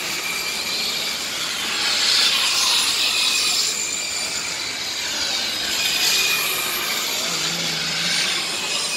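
Radio-controlled racing trucks running on the circuit: a high whine and hiss from motors and tyres that swells as the trucks pass, about two seconds in and again around six seconds.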